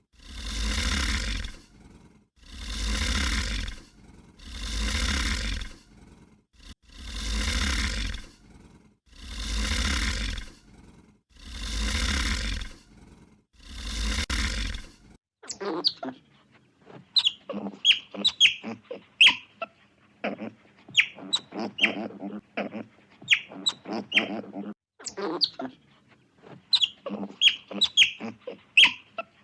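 A large farm animal giving a run of about eight rough, rasping calls, one every two seconds or so. About halfway through it stops, and many short, high chirps and calls from birds take over.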